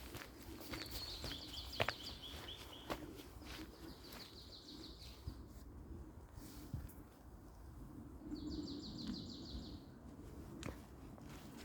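A small songbird singing a high, rapid trill three times, each phrase lasting one to two seconds, with scattered footsteps in between.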